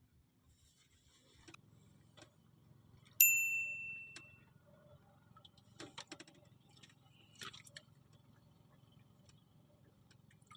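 A small metal bell rings once, a clear high ring that dies away over about a second, with light clicks and rattles a few seconds later.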